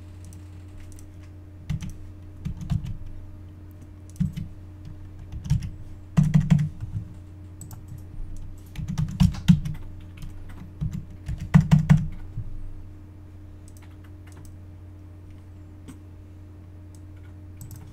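Keystrokes on a computer keyboard in several short bursts as numbers are entered; the typing stops about two-thirds of the way through. A steady low hum runs underneath.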